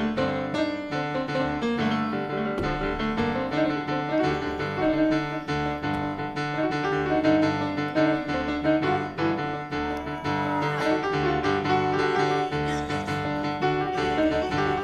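Piano music: a continuous run of struck notes over a steady bass line.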